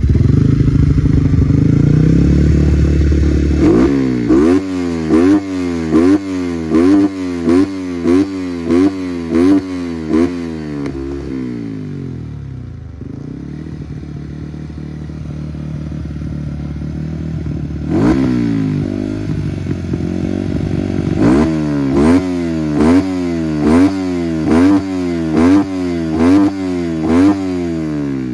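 Two-stroke motorcycle with a stock engine, its throttle blipped over and over: quick revs about one and a half a second, each rising and falling back. It starts with a loud steady run, drops to a low idle about halfway through, then another long string of quick blips.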